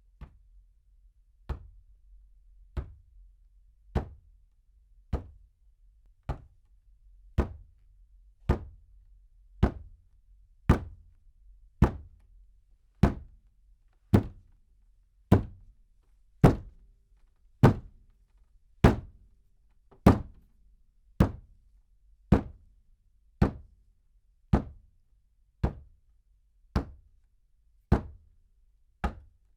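A steady series of slams on a table, heard from medium distance: about one sharp hit a second, each dying away quickly, some harder than others.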